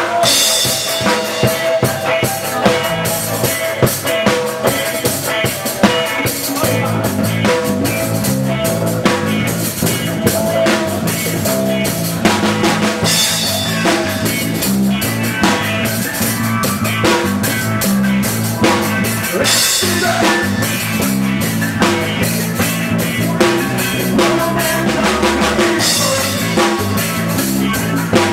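Live reggae band playing: a drum kit with snare, rimshots, bass drum and cymbals over an electric bass line.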